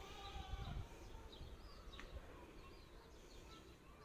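Faint birdsong: scattered short chirps from small birds over a low rumble of wind, with a brief pitched call in the first second.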